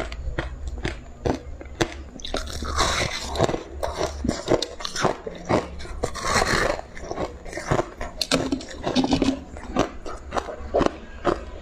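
Ice being bitten and chewed: many sharp, quick crunches and crackles of frozen purple ice breaking between the teeth, with two longer, louder crunching stretches about three and six seconds in.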